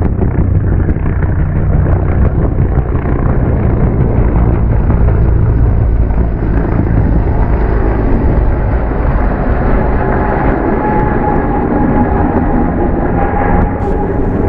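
A vehicle running steadily: a loud, even mechanical rumble with no speech over it.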